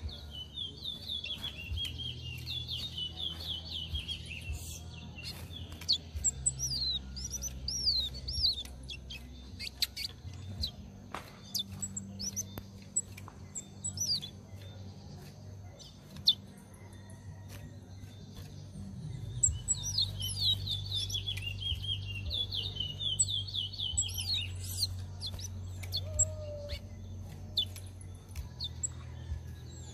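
Caged chestnut-bellied seed finches (towa towa) singing in a head-to-head song match. Long, fast warbling phrases at the start and again from about two-thirds of the way in, with sharp chirps and clicks between them.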